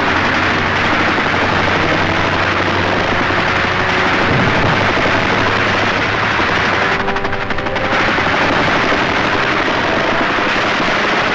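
Dogfight battle sound: fighter aircraft engines droning under continuous machine-gun fire, with a rapid burst of gunfire about seven seconds in. It sounds dense and steady, as on a 1940s film soundtrack.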